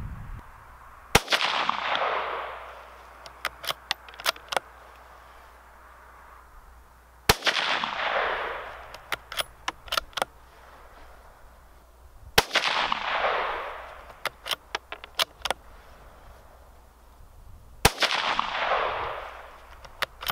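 Four shots from a Rossi RB17 bolt-action .17 HMR rifle, about five to six seconds apart, each sharp crack trailing off in an echo over about a second. After each shot comes a quick run of sharp metallic clicks as the bolt is worked to eject the case and chamber the next round.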